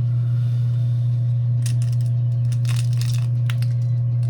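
Quail eggshell crackling and crunching as it is cut open with pruning shears: a cluster of short crackles starting about a second and a half in. A steady low hum runs underneath and is the loudest sound.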